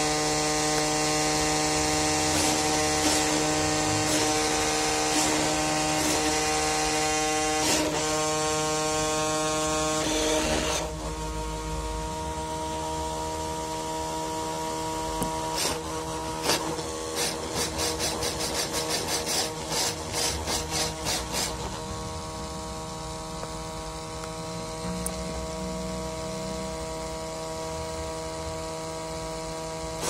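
The Nikko Psycho Gyro's spinning gyroscope flywheel and motor, a steady whine of several tones that sounds like a small jet engine. It drops in level about ten seconds in, and a run of rapid clicks sounds over it for several seconds past the middle.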